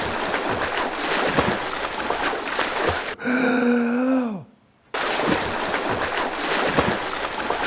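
Water splashing and sloshing, as of someone swimming, played as a repeating loop. About three seconds in, a held voice-like tone breaks through and falls away in pitch, then the sound drops out briefly before the splashing starts again.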